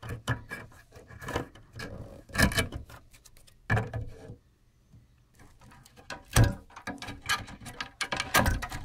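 Ribbon-cable plugs being pulled out of DIP IC sockets on a circuit board by hand: a string of irregular plastic clicks and knocks with rubbing between them. The loudest knocks come about two and a half, four, six and a half and eight and a half seconds in.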